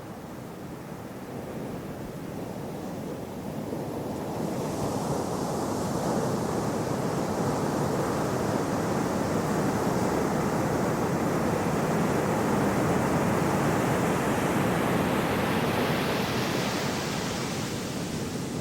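Gentle sea waves: a steady surf wash that builds over the first few seconds, stays at its loudest through the middle, and eases slightly near the end.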